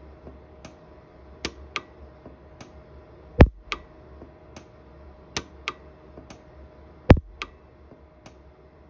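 Orion 150s pulse arc micro welder firing on a silver ring to fill porosity: two loud, sharp snaps, one near the middle and one about three-quarters through, each a single weld pulse, amid a scatter of smaller clicks.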